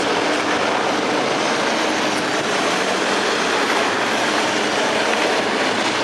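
Off-road 4x4 vehicle running: a steady engine drone under a loud, even rushing noise, with no breaks or sharp knocks.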